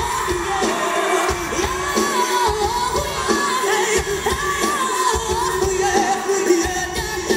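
Live band playing with a male lead singer belting into a handheld microphone over a steady drum beat, heard from within the concert audience.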